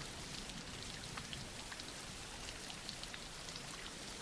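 Steady soft rain falling, a constant even hiss with scattered faint drop ticks.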